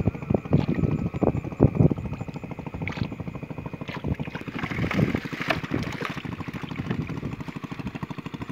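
Netted fish flapping and splashing in shallow water as the net is drawn up, with an engine running steadily in the background.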